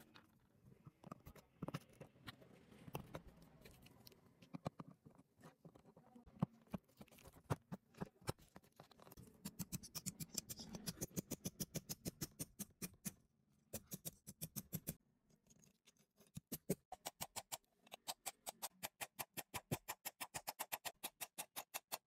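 Small hammer lightly tapping brass handle pins against a steel block, peening them over to rivet the handle scales. Scattered knocks at first, then from about ten seconds in rapid runs of even taps, about five a second, with short breaks.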